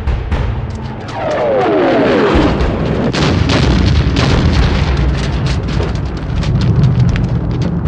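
Dramatized battle sound effects of a warship under fire: explosions and heavy rumbling with many sharp cracks. A falling whistle sounds about a second in, and after it a continuous deep rumble fills the rest.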